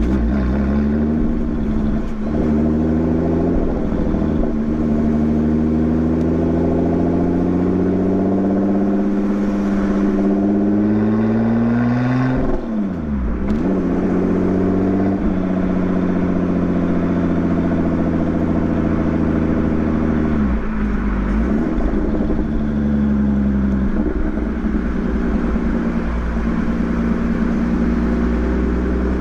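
Lotus Exige 430 Cup's supercharged 3.5-litre V6 running under load, its pitch climbing slowly for about twelve seconds. The revs then drop sharply and pick up again, with a second drop about twenty seconds in, after which it settles into a steady drone.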